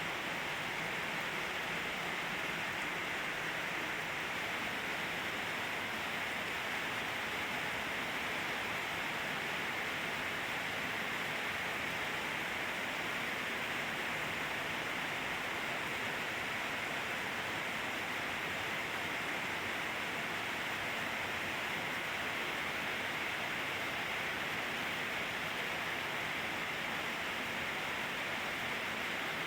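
Steady rain from a rainstorm, an even hiss with no breaks.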